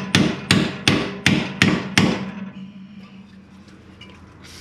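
Hammer blows driving a rusted, seized lower control arm bolt back in to free it, about three sharp ringing strikes a second. Six strikes, then the hammering stops about two seconds in.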